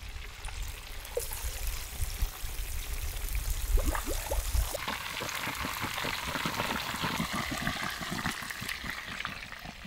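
Oily masala splashing and trickling back into a large iron pot as whole fried goat pieces are dunked and lifted out, over a low rumble. About five seconds in this gives way to the steady sizzle and crackle of hot oil bubbling in the pot.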